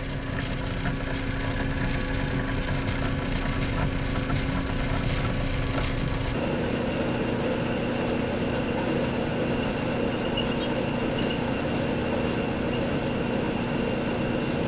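Steady hum of shop machine motors: a drill press at first, then, after an abrupt change about six seconds in, a small metal lathe turning aluminum stock.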